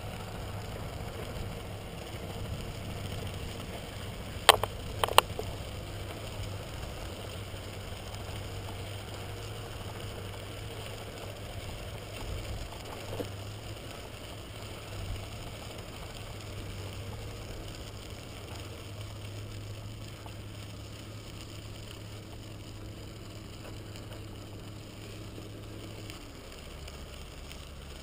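Bicycle rolling along a crushed-gravel trail: steady tyre and wind noise with a low hum underneath, and two sharp clicks close together about four and a half seconds in.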